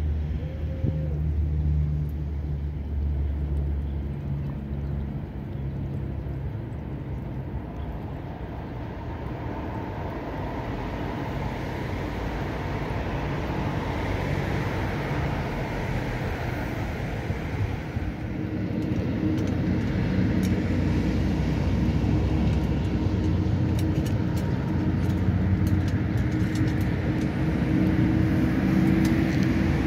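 Steady low hum of vehicle engines nearby. A second, higher held tone joins about two-thirds of the way in.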